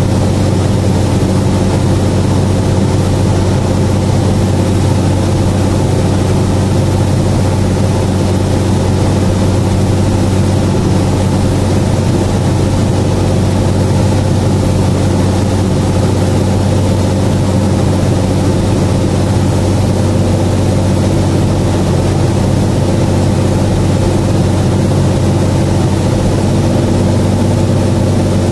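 Aircraft engines running steadily, heard from inside the aircraft as a constant low drone with several steady tones that do not change in pitch or level.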